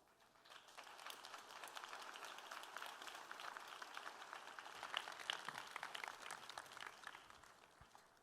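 Audience applauding, a faint patter of many hands clapping that builds about half a second in and dies away near the end.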